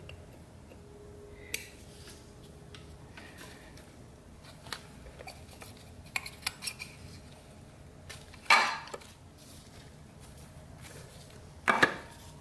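Light metal clinks and taps as a billet aluminium valve body and its manual valve are handled and fitted on a 4L80E transmission case, with two louder clunks, one past the middle and one near the end.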